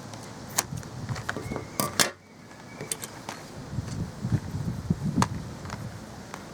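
Hands working double-sided tape onto plastic car badges: scattered light clicks and taps over rustling, with two sharper clicks about two seconds in.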